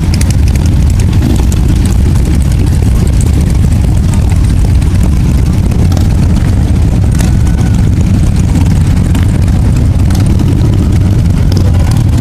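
A procession of cruiser and touring motorcycles, many of them Harley-Davidson V-twins, riding past slowly in an unbroken stream: a loud, steady, deep rumble of many engines at once.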